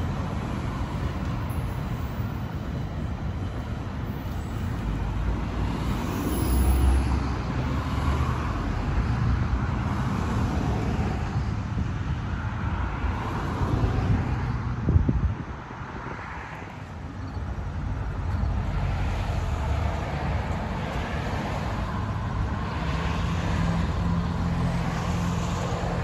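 Steady low rumble of passing vehicles, with a single sharp knock about halfway through, after which the sound briefly drops.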